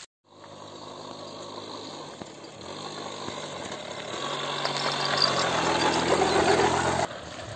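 Small TVS motorcycle running as it rides up toward the listener, growing louder as it comes closer, its engine note shifting a few times. The sound cuts off suddenly near the end.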